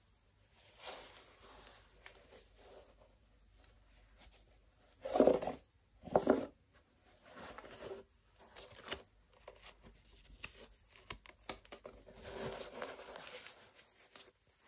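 Rustling and rubbing as white cotton-gloved hands handle and turn a corduroy sneaker, with two louder brief scrapes about five and six seconds in.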